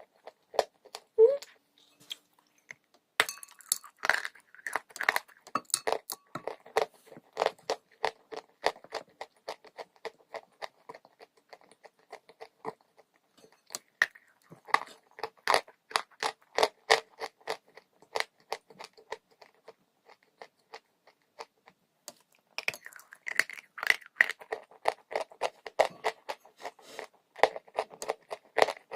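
Dry chalk crunching close to the microphone as it is bitten and chewed: rapid, crisp crackles in three long runs, with short lulls after about two seconds, around twelve seconds and around twenty seconds.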